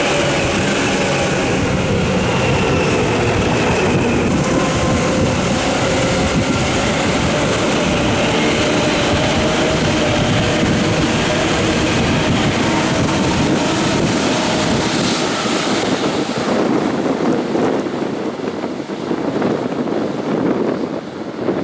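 Tokyu 8500 series electric train running, its traction motors giving a loud whine of several steady pitches over the noisy rumble of the running gear. A little over two-thirds of the way through, the whine fades and a rougher, slightly quieter rumble remains.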